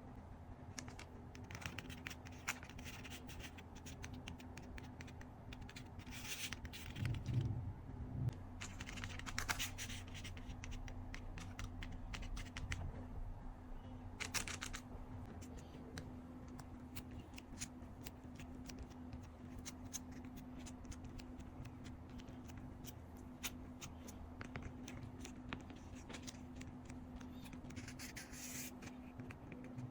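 Hands handling a homemade fidget board: scattered small clicks and taps with several short stretches of scratching and scraping.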